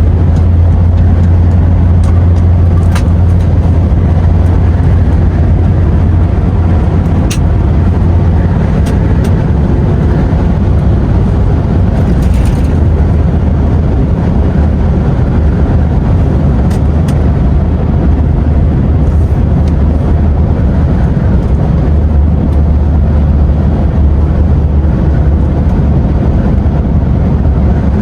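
A DAF XF truck's diesel engine droning steadily with road noise, heard from inside the cab while driving at a constant pace. A few faint clicks come and go over it.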